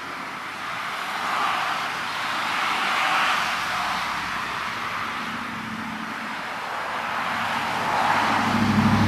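Road traffic: cars passing on the street, their tyre noise swelling and fading a few times, with an engine hum that grows loudest near the end.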